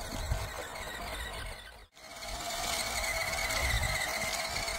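MN78 Jeep Cherokee RC crawler's 280 brushed motor and gearbox whining as the truck drives over rough ground. The sound breaks off about two seconds in, then returns with a higher whine that wavers in pitch.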